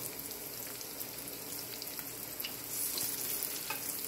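Breaded basa fillets frying in shallow coconut oil in a pan over medium heat: a steady sizzling hiss with light crackles, swelling briefly about three seconds in.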